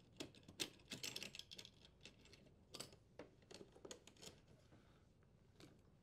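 Faint scattered clicks and light rattles of a dishwasher power cord's strain relief and wires being worked loose from the metal junction box by hand, thinning out over the last couple of seconds.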